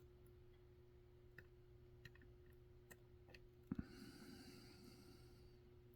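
Faint, scattered clicks of a lock pick working the pin stack of a Dom 333 RN pin-tumbler lock, with a sharper double click a little past halfway, followed by a soft hiss.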